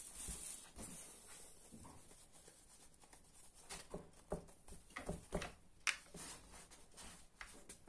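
Faint handling sounds of dough being pressed out by hand and rolled with a rolling pin on a wooden board: a scatter of soft taps and light knocks in the second half.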